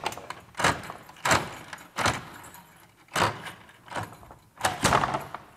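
Metal door locks and bolts being unlocked and slid back one after another: a series of about eight sharp metallic scrapes and clacks, irregularly spaced, each dying away quickly.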